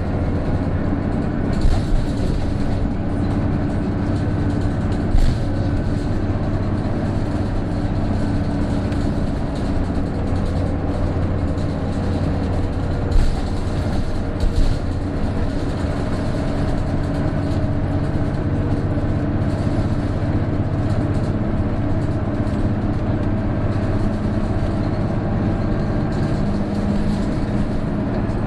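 Interior running sound of a PJ-KV234L1 diesel city bus under way, its engine droning steadily with a thin whine above it, which the uploader hears as a characteristic abnormal noise like an Aisin automatic gearbox once the turbo comes in. A few brief knocks and rattles from the cabin come through.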